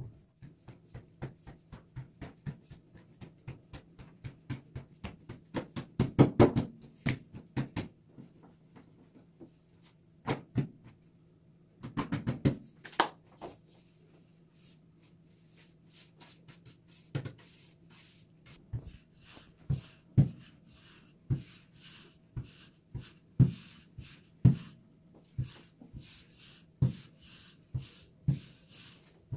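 Kitchen handling sounds: a run of light taps and knocks, busiest and loudest about six seconds in and again around twelve seconds, then separate knocks about once a second, over a faint steady hum.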